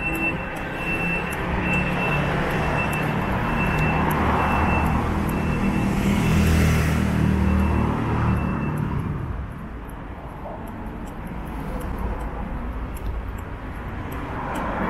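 City street traffic with a motor vehicle's engine passing close by, loudest about six to eight seconds in, then fading. A high beep repeats about twice a second through the first nine seconds.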